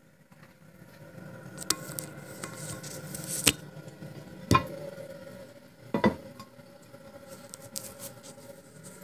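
Porcelain toilet tank lid being lifted off and set down: four sharp ceramic knocks and clinks, the loudest about three and a half seconds in, a double one about six seconds in, over a steady hiss of water.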